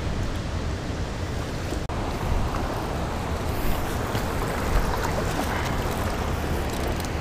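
Steady rush of flowing creek water, with wind buffeting the microphone.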